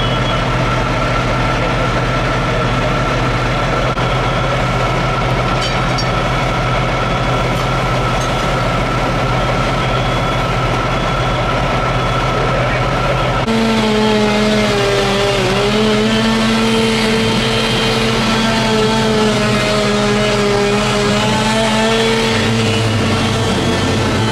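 Loud, steady engine noise with a constant hum. About halfway through it switches abruptly to a higher engine note that wavers up and down.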